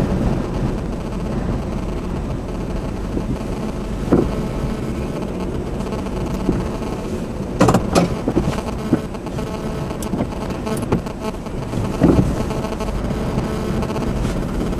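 Steady low rumble of a car running, heard from inside the car, with a few sharp knocks: one about four seconds in, a cluster near eight seconds and one near twelve seconds.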